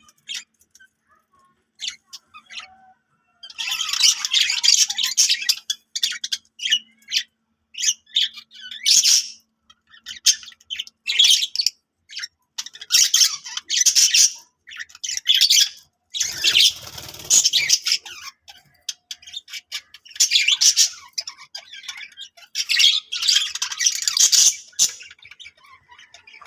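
Budgie chirping and warbling in quick bursts, with harsher squawks mixed in. About two-thirds of the way through there is a brief rustling noise.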